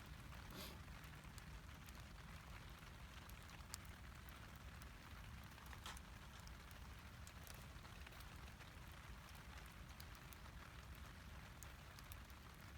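Faint, steady rain, with scattered single drops ticking sharply now and then.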